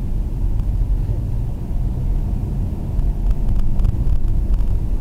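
Steady low rumble of road and engine noise inside a taxi's cabin while it drives, with a few faint clicks in the second half.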